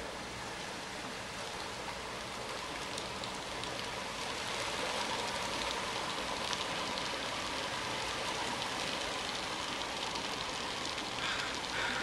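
A flock of ducks splashing as they dive and feed on mussels along a pontoon, a steady hiss of splashing water that grows louder about four seconds in.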